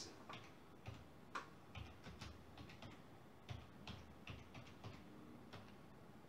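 Keys on a computer keyboard being typed: a dozen or so faint, irregularly spaced key clicks as the command 'adb devices' is keyed in and entered.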